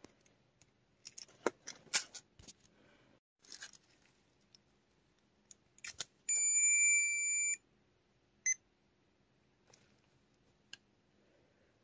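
Tamagotchi virtual pet giving one long steady beep of about a second as it powers on, followed about two seconds later by a single short beep. Before that, light clicks and rustles of the plastic toy being handled.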